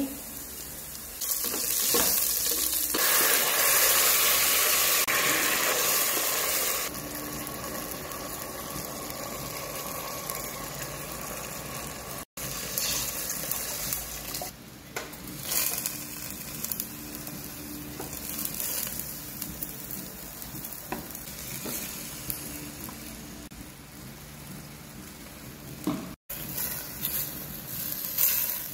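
Chopped aromatics sizzling in hot oil in a stainless steel pot, much louder for several seconds near the start. After a cut, water is poured from a jug into the pot of sardine broth. Near the end, a spatula stirs sweet potato leaves (camote tops) in the pot.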